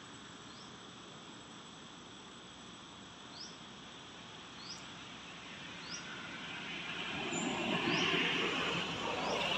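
Outdoor woodland ambience: short, high, rising chirps recur every second or so over a steady background hiss. In the last two seconds a broad rushing noise swells up and grows louder.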